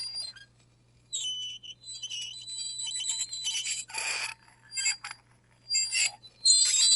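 Metal fork scraping across a ceramic plate in irregular strokes, giving high-pitched squeals and screeches with short pauses between strokes.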